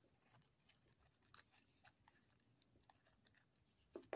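Faint, scattered ticking and crinkling of small diamond-art gems sliding off a tray into a small plastic baggie, with one slightly louder brief sound near the end.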